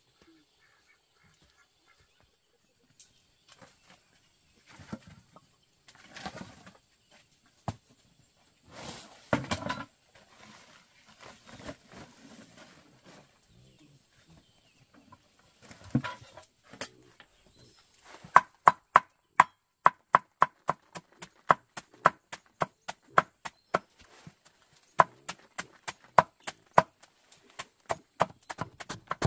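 Chopping: a steady run of sharp strokes, about three a second, that starts a little past the middle, after scattered knocks and rustling.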